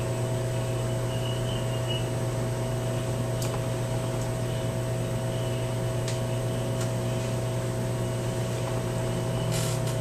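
Steady low electrical hum of room noise, with a few faint clicks of tiny plastic helicopter tail parts being handled.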